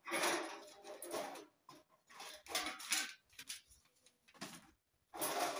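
Irregular scrapes, knocks and rustles from handling a stainless steel wood-burning stove: the stove is tipped, and its metal ash tray is pulled out and set down on a concrete floor.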